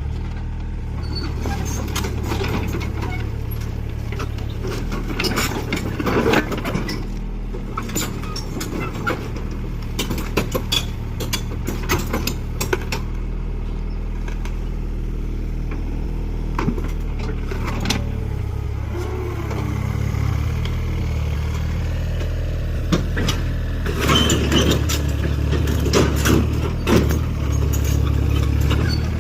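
Excavator's diesel engine running steadily, with scattered metallic clanks and knocks from the machine moving. The engine note shifts about two-thirds of the way through.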